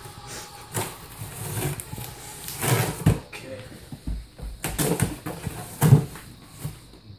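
Cardboard shipping box being slit open with a small knife: the blade scraping through packing tape, with cardboard rustling and short knocks as the flaps are handled.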